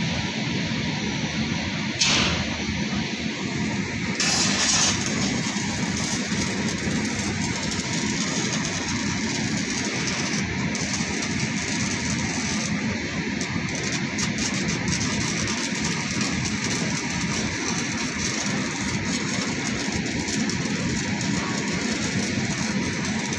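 Stick (SMAW) welding arc crackling and hissing steadily as a 3 mm E6013 electrode runs a horizontal (2G) weld around a galvanized iron pipe joint. There are louder bursts about two seconds in and again about four to five seconds in.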